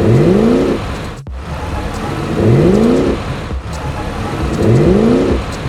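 Animated-vehicle engine sound effect revving three times, each a short rising whine about two seconds apart, over a steady low engine rumble.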